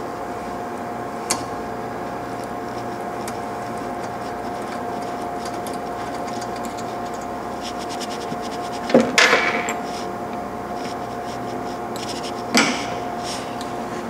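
Small metal parts, a steel grip collet, its internal screw and a hex wrench, clinking against the testing machine's metal base: a light click about a second in, a cluster of clinks around nine seconds and one more sharp clink near the end, over a steady hum.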